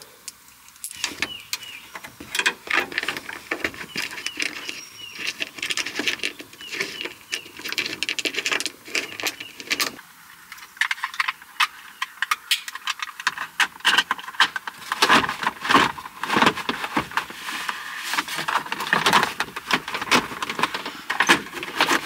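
Dense metallic clinking and rattling: many small sharp knocks and clicks in quick, irregular succession, as of small hard objects being handled.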